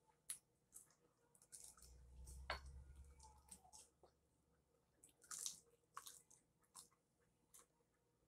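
Faint wet chewing and lip-smacking as fried chicken is eaten off the bone, in scattered short smacks. A low rumble runs briefly about two seconds in.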